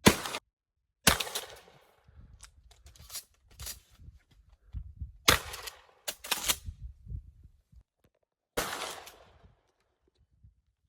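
Shotgun shots fired one at a time at uneven intervals, about five in all, each with a short echoing tail, and quieter clicks and knocks between them.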